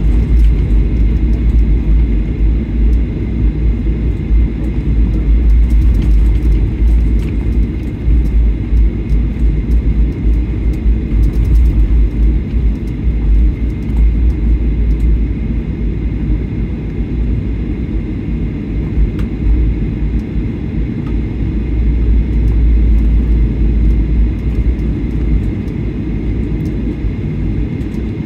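Cabin noise of a Boeing 737-800 taxiing: a steady low rumble from its CFM56 engines at taxi power and the airframe rolling along, with a faint steady high tone above it.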